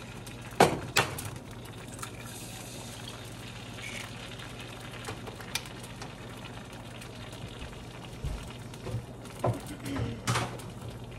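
Eggs frying in a hot skillet with a steady sizzle, and a few sharp clicks and knocks about a second in and again near the end as the eggs are handled at the pan.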